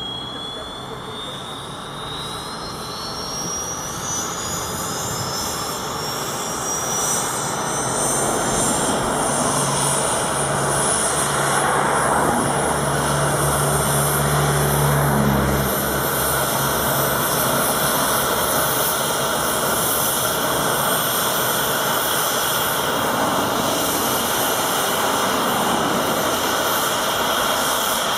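AgustaWestland AW139 helicopter starting up on the ground: the whine of its twin Pratt & Whitney PT6C turboshaft engines rises steadily in pitch and loudness over the first ten seconds or so as the main rotor spins up. After that it runs steadily and loudly, turbine whine over the rushing rotor noise.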